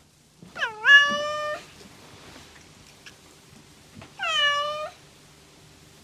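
Domestic cat meowing twice: a call about a second long that dips in pitch and then levels off, and a shorter one about four seconds in.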